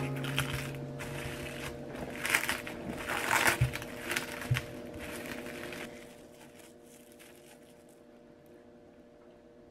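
Plastic cling wrap crinkling as it is pressed and tucked around a glass baking dish, with a couple of soft low knocks; the crinkling dies away after about six seconds.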